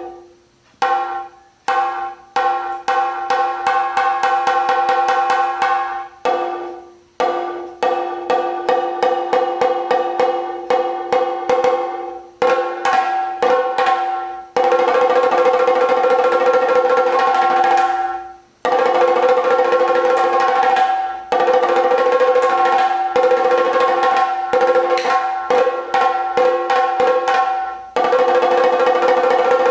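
A chenda, the Kerala cylindrical drum, is struck with two curved wooden sticks in fast strokes that ring at a few steady pitches. About halfway through, the strokes run together into near-continuous rolls, broken by a few brief stops.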